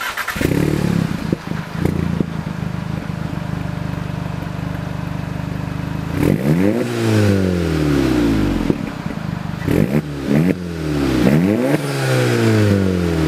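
Volkswagen MK7 GTI's turbocharged four-cylinder engine heard through an aftermarket center-exit cat-back exhaust: running steadily, then revving up and falling back about six seconds in, and again after about eleven seconds.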